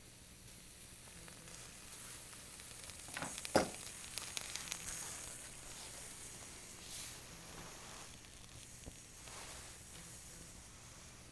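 Faint sizzling from a titanium cup of water heating over a burning homemade alcohol cat stove, the water not yet at the boil. A short cluster of clicks and knocks about three to four seconds in.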